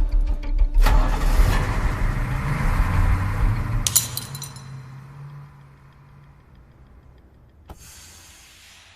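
Heavy engine of a bus running hard as it pulls away, with loud crashes and rattling debris about a second in and again about four seconds in. It then fades to a faint steady hum.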